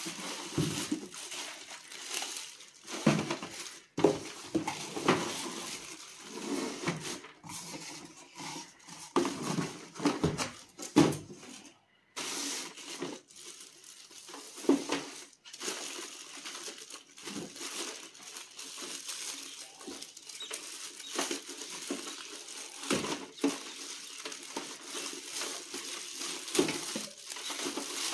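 Clear plastic wrap crinkling and rustling as a plastic exhaust fan is pulled from its cardboard box and handled, with a few louder knocks of the plastic housing against the box and table.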